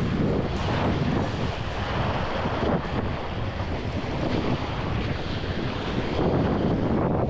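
Gale-force wind buffeting the microphone in a steady, heavy rumble, with ocean surf rushing beneath it.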